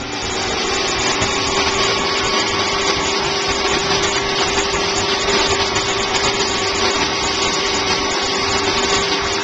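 Steady hiss of a pistol-grip hose sprayer spraying water over a small dog during a bath, with a constant hum under it.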